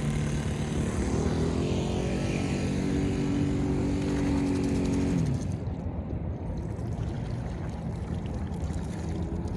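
Engine of a homemade propane-powered RC boat running, its pitch rising about a second in and holding high. About five seconds in the pitch drops sharply and the engine sound falls away, leaving wind and water noise.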